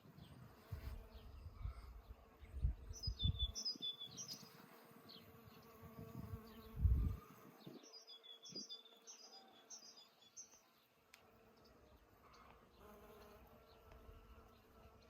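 A bee buzzing close by, swelling loud a few times in the first half, while a small bird twitters in two short runs of high chirps.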